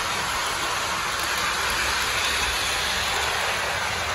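Lionel Gingerbread Junction O-gauge toy train running on its oval track, a steady whirring rumble of motor and wheels on the rails.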